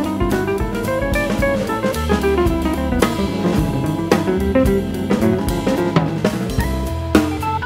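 Background music: a band track with drum kit, bass and melody instruments, keeping a steady beat.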